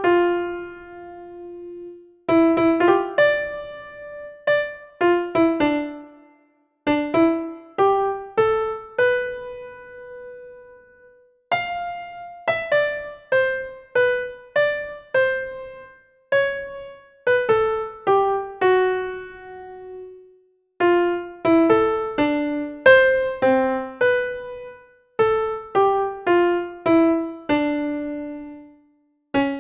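Background music: a gentle melody of single notes on a piano-like keyboard, each note struck and fading, in short phrases with brief pauses between them.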